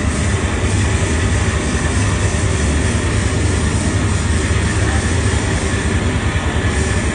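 Live noise music played loud: a dense, steady wall of distorted electric guitar and electronics with a heavy low rumble and no clear beat.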